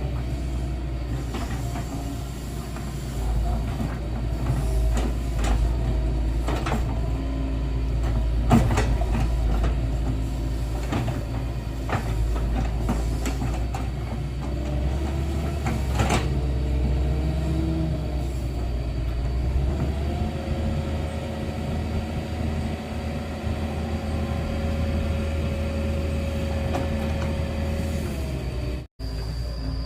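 Excavator's diesel engine running steadily, its pitch shifting as the machine works, with a few sharp knocks along the way. The sound cuts out for an instant near the end.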